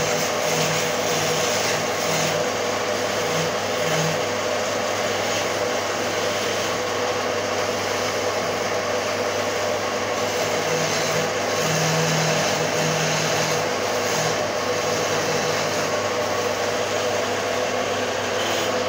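Wood lathe running steadily while a long hand chisel cuts into a spinning wooden charpai leg: a constant motor hum under the hiss of the tool shaving the wood.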